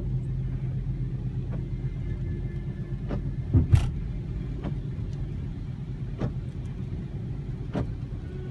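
Inside a moving car on a rain-wet road: steady low rumble of the engine and tyres, with scattered sharp ticks and one louder thump a little past the middle.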